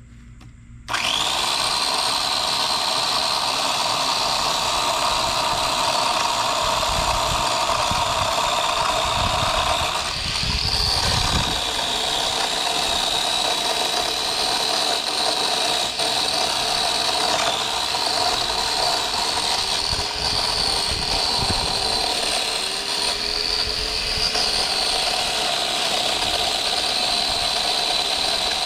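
Small Works chainsaw starting up suddenly about a second in and running steadily with a high whine, its pitch dipping slightly now and then as it cuts through branches.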